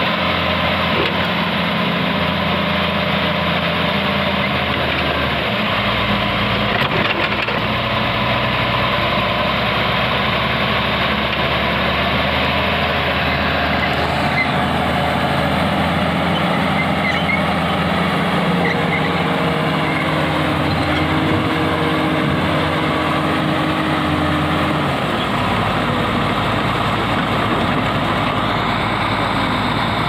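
Heavy diesel engines of a Komatsu hydraulic excavator and a crawler bulldozer running steadily under work while the excavator digs out the bulldozer, which is bogged in mud. The engine note shifts a few times as the load changes.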